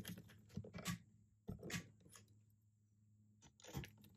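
A torque driver with a socket turning the steel screws of a scope ring mount tight, giving a few short, faint scrapes and clicks of metal on metal.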